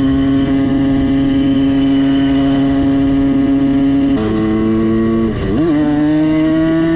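Simson S51's tuned 85 cc two-stroke single-cylinder engine running at high revs under way. The revs hold steady for about four seconds, dip briefly and pick up again about five and a half seconds in, then climb slowly.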